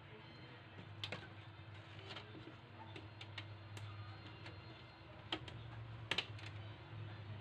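Scattered light clicks and taps as a TV power supply board and its wire connectors are handled and shifted on the sheet-metal back panel of a flat-screen TV, over a steady low hum.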